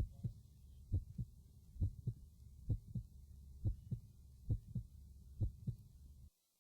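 Human heart sounds heard through a stethoscope at the mitral area: a steady, regular lub-dub, about six beats at just over one a second, over a low steady hum. Each beat is the first sound (mitral and tricuspid valves closing) followed closely by the second sound (aortic and pulmonary valves closing). The sound cuts off briefly near the end.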